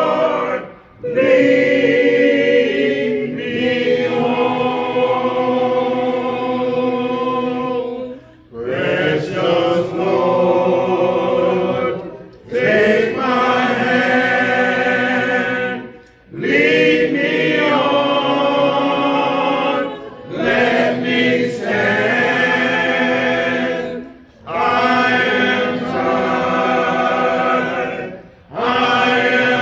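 Church congregation singing a cappella, with no instruments, in long held phrases that pause briefly for breath about every four seconds.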